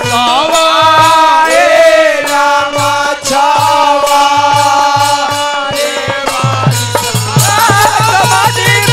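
Bhojpuri Chaita folk song: voices singing over harmonium, a dholak and hand cymbals. About six and a half seconds in, the dholak quickens into a fast, steady beat.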